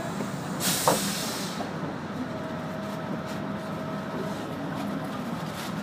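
Steady engine and road noise inside a city route bus as it drives, with a short burst of hiss about a second in and a faint steady whine in the middle.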